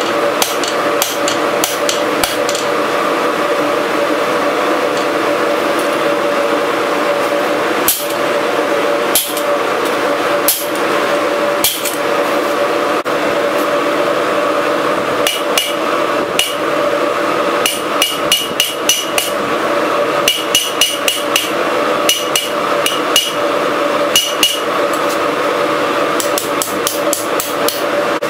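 Hand hammer striking a red-hot steel bar on an anvil, in runs of quick blows of about five a second separated by pauses, the later blows ringing. A steady hum runs underneath.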